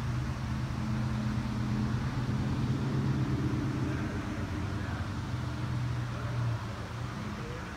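Steady low machine hum in a car service shop, over the shop's general background noise; the hum comes in at the start and drops away about six and a half seconds in.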